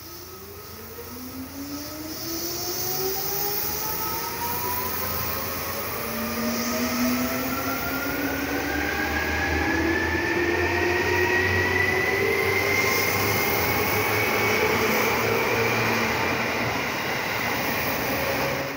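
Seibu 2000 series electric train pulling away from a station: its traction motors whine in several tones that rise steadily in pitch as it accelerates, over a growing rumble of wheels on rail.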